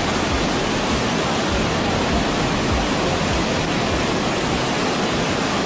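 Waterfall: a steady, even rushing of falling water with no change.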